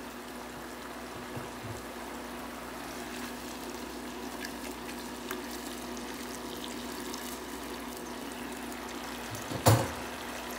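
Onion and red and green peppers sizzling steadily in oil in a frying pan, stirred with a spatula. A single short, loud knock near the end.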